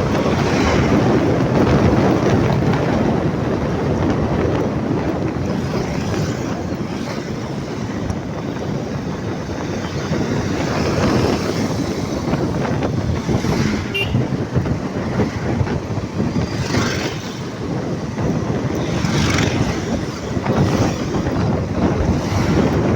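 Road vehicle noise with wind buffeting the microphone, a steady rumble with several vehicles swelling past in the second half.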